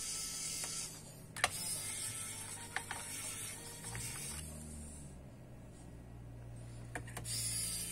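A small electric motor whirring in stretches, its pitch shifting, during laptop disassembly, with three sharp clicks about a second and a half, three and seven seconds in.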